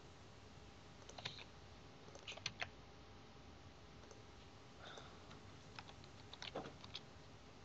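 Faint computer keyboard keystrokes, a few at a time in scattered clusters.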